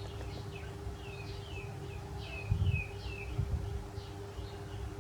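Small birds chirping over and over, short high notes sliding downward, several a second. Dull low bumps come about halfway through, with a faint steady hum underneath.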